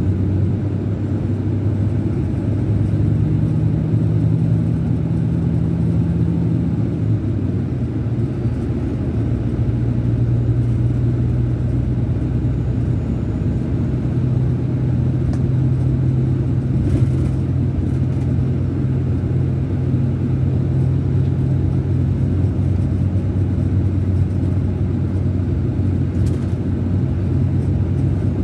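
Scania K410 coach's DC13 inline-six diesel running at a steady highway cruise, heard inside the upper deck: a constant low drone over road noise, its note shifting slightly about seven seconds in.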